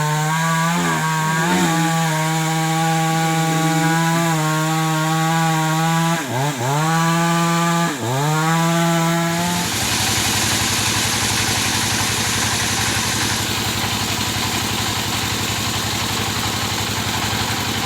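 Chainsaw engine running at high revs with a steady note that dips briefly in pitch a few times, then drops to a rough idle about ten seconds in.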